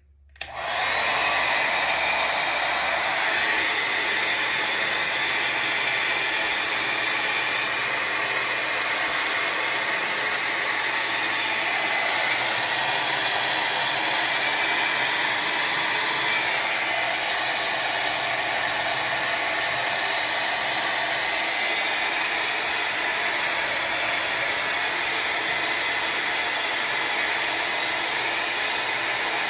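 Revlon handheld hair dryer switched on about half a second in, then blowing steadily on its cool setting, held on by its button.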